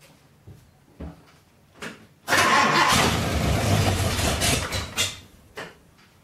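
A 5.8-litre Ford V8 being cranked over by its starter in a start attempt. It begins about two seconds in, runs loudly for about three seconds, then stops, with a few knocks afterwards. This is the first attempt to start the rebuilt engine since it was on the stand, on a battery the owner calls a bit suspect.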